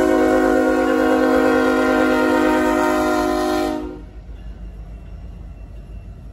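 Diesel freight locomotive air horn sounding one long, steady blast. It cuts off about four seconds in, leaving the low rumble of the passing train.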